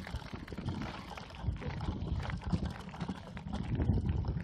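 Wind buffeting the microphone of a camera riding on a moving mountain bike, over the rumble and small rattles of the bike rolling along an unpaved path.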